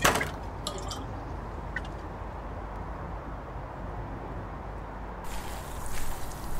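Water from a watering can sprinkling and dripping onto plants: a steady trickle that turns hissier and a little louder about five seconds in. A short knock comes at the very start.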